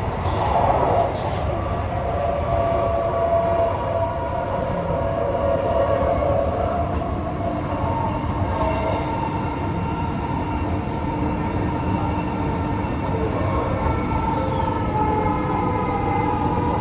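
Inside a moving electric passenger train: steady rumble and hiss of the wheels on the rails, with a whine of several tones that drifts slightly in pitch. A short louder noise comes about a second in.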